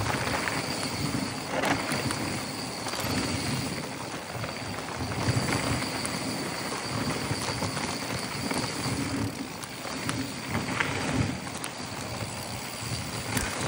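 Mountain bike rolling fast down a dry, rocky dirt trail: knobby tyres crunching over dirt and loose stones and the bike rattling over bumps, with wind rushing on the microphone. A couple of sharp knocks from hitting rocks, one about two seconds in and another near eleven seconds.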